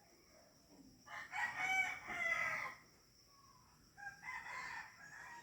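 Rooster crowing: one long, loud crow about a second in, then a second, fainter call near the end.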